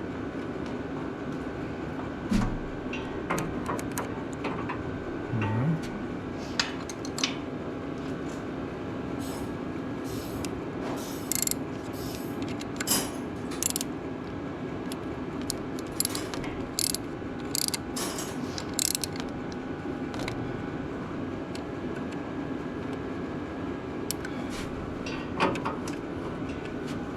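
Wrench and hand tools clicking and clinking on metal while the starter connections on a Ford 8N tractor are tightened: irregular sharp taps, a few louder knocks, over a steady low hum.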